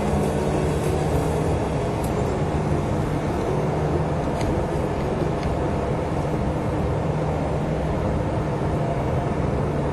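Steady engine and road noise of a moving car, heard from inside the cabin, with a constant low drone.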